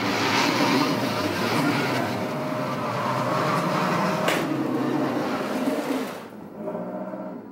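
Subaru SUV engine revving hard under load as the car reverses through deep snow, its tires churning the snow. About six seconds in the revs drop suddenly to a lower, steadier engine note.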